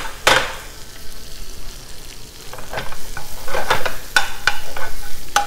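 Swiss chard sizzling in a sauté pan while metal tongs toss it. There is one sharp clink about a quarter second in, then from about two and a half seconds a run of clinks and scrapes of the tongs against the pan.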